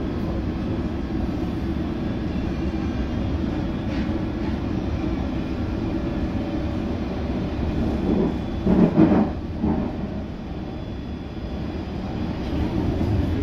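Interior of a London Underground S7 Stock train on the move: a steady rumble of wheels and running gear. A brief louder sound stands out about nine seconds in.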